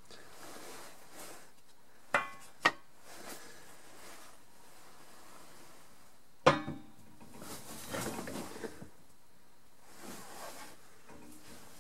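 Aluminium engine crankcase being handled and shifted on wooden supports in a shop press: two sharp clunks about two seconds in, a louder knock midway, then a second or so of scraping and rattling as it is settled into place.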